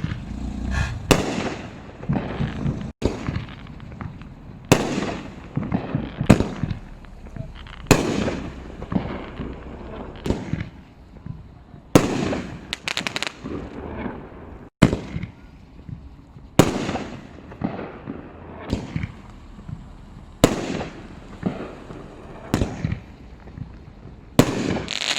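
Consumer aerial fireworks going off: about a dozen sharp, loud bangs, one every second or two, each trailing off in an echo.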